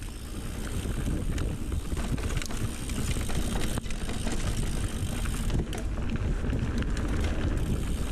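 YT Capra mountain bike ridden along a dirt trail: steady tyre and riding noise with scattered sharp clicks and rattles, and wind rushing over the camera's microphone.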